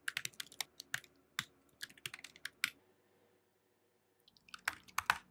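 Typing on a computer keyboard: quick, uneven key clicks for nearly three seconds, a pause, then a short burst of louder keystrokes near the end.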